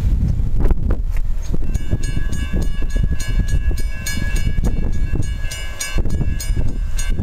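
Railroad grade-crossing bell ringing with rapid, even strokes, starting about a second and a half in, while the crossing lights flash and the gate arm rises as the crossing clears after the train. A low rumble of wind on the microphone runs underneath.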